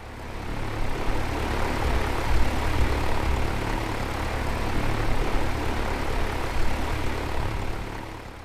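Propeller aircraft running steadily with a low hum, fading in at the start and out near the end.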